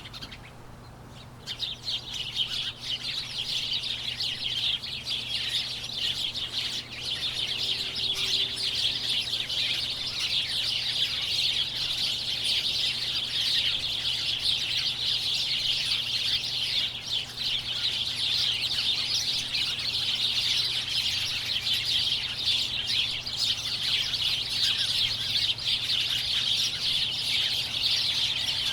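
A large flock of birds chirping together in a dense, continuous chatter of overlapping chirps and tweets. It thins out briefly at the start and fills back in about a second and a half in.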